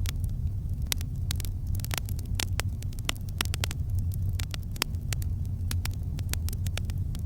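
Campfire burning, with frequent sharp crackles and pops, several a second, over a steady low rumble.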